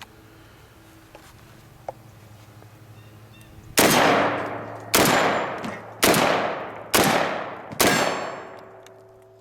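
Five 12-gauge shots from an MKA 1919 semi-automatic AR-style shotgun, fired about a second apart, each with a long echoing decay. Steel targets ring after the last shot.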